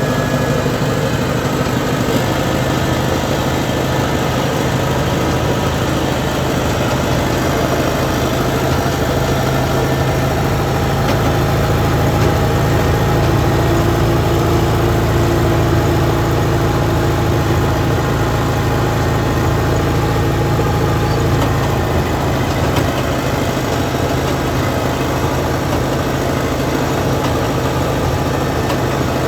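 A compact track loader's engine running steadily, a little louder for a few seconds around the middle.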